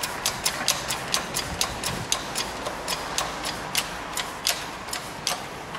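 Hydraulic shop press being pumped to push a stub axle out of a wheel hub: quick, regular sharp clicks, about four a second, spacing out a little near the end.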